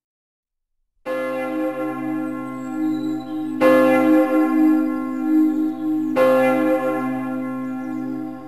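Silence, then about a second in a large bell starts tolling: three strokes about two and a half seconds apart, each ringing on into the next with a steady low hum underneath.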